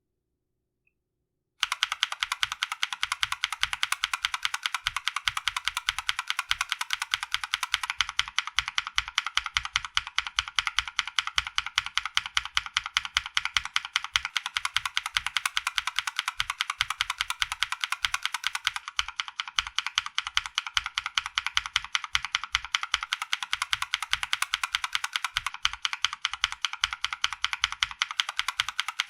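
Mechanical keyboard with Glorious Panda tactile switches: one key pressed rapidly and repeatedly, a steady run of clacks at about four to five a second, each with a low thud. The clacks start suddenly about a second and a half in.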